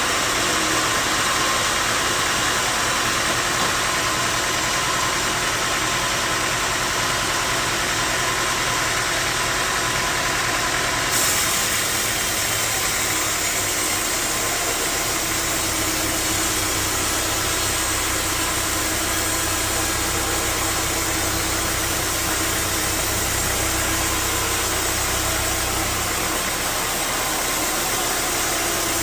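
Sawmill machinery running steadily with a continuous mechanical drone. A deeper hum comes in about halfway through and fades near the end.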